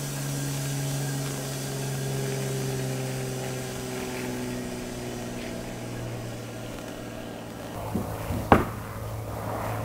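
Homemade bandsaw mill's electric motor and blade running with a steady hum, the higher tones slowly sinking in pitch. A few knocks come near the end, one of them sharp.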